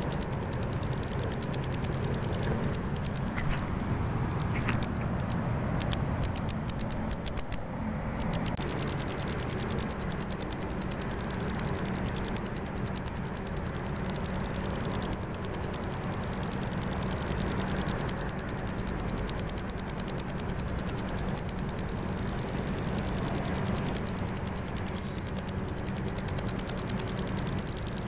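A continuous high-pitched insect trill, a rapid even pulsing, as of night crickets. A few seconds in it stutters into broken bursts and drops out briefly, then runs steadily again.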